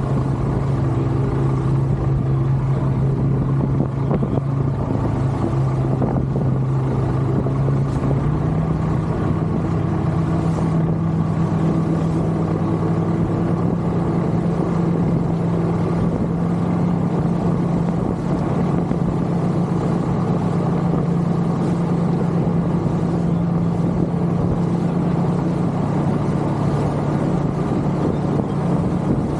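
A boat's engine running steadily under way. Its note steps up slightly about eight seconds in, as the revs rise.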